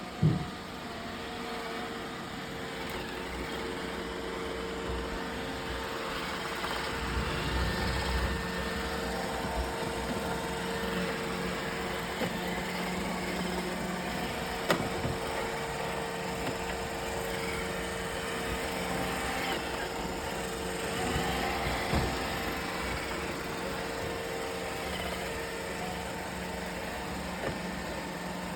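Roomba robot vacuum running: a steady motor hum with a constant whine over the brush noise, and a few sharp knocks.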